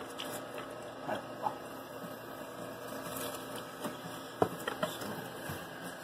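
Light clicks and knocks of a plastic drain hose being moved against a plastic drain pan, the sharpest about four and a half seconds in, over a steady running noise.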